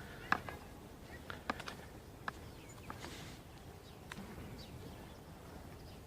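Quiet outdoor ambience with a scatter of short, sharp clicks and chirps at uneven intervals, a few of them louder, including one about a third of a second in.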